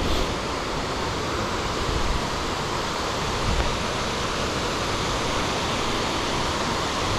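Waterfall rushing steadily: a dense, even wash of falling water with an uneven low rumble underneath.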